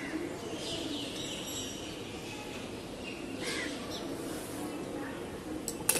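Steady background noise with a low hum and a few faint, high chirps, followed by a couple of sharp clicks near the end.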